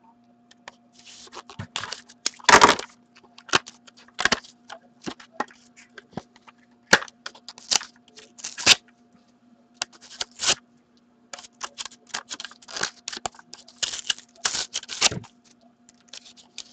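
The wrapper of a sealed Ultimate Memorabilia hockey card pack being worked and torn open by hand, crinkling and crackling in irregular bursts, with the loudest crack about two and a half seconds in. A faint steady hum runs underneath.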